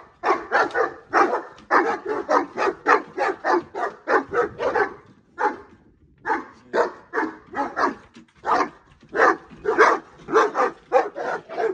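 Several Saint Bernards barking excitedly in a rapid run of deep barks, about two to three a second, with a short pause about halfway through.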